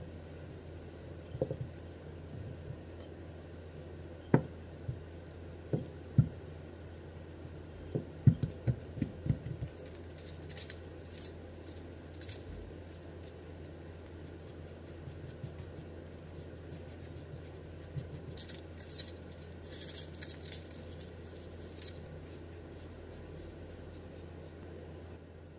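A wooden rolling pin rolling and knocking on a wooden board, with a run of sharp knocks in the first ten seconds. Then dry rustling and scratching as sugar filling mix is shaken from a paper packet and brushed across the dough with a silicone brush.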